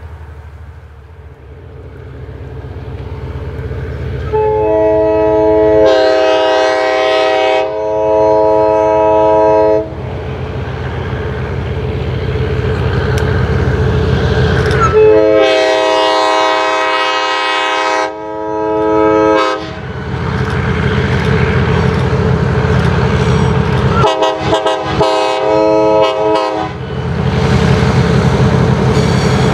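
Diesel locomotive approaching and sounding its air horn: a long blast, a second long blast, then a run of short blasts, over a low engine rumble that grows steadily louder as it nears.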